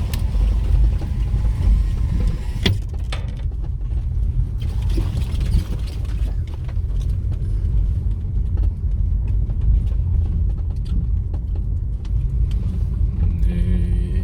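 Steady low rumble of a moving vehicle heard from on board, with a single sharp knock about two and a half seconds in.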